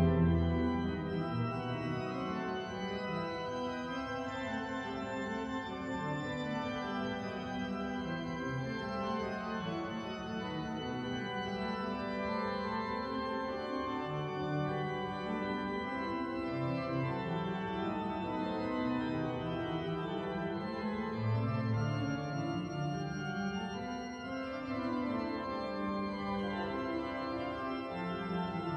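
Pipe organ playing a quiet passage of several moving lines in the lower and middle range over held notes, after a louder sound that drops away about a second in.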